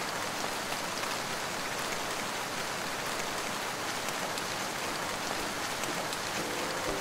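Steady rain falling on a wet surface, an even hiss of drops. A few steady musical tones come in near the end.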